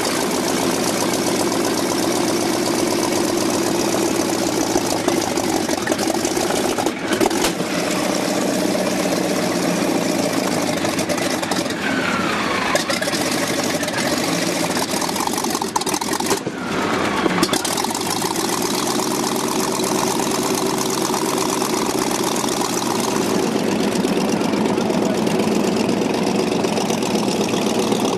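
Franklin O-540-7 eight-cylinder aircraft engine of a Northrop N9MB flying wing, freshly started and running at a ground run-up, turning a pusher propeller. It runs loud and steady, with the engine speed shifting briefly a couple of times.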